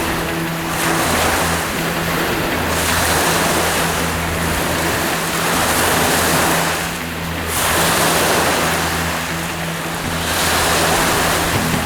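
Wind-driven waves breaking on a lake beach in a strong north wind, the surf swelling and easing every few seconds.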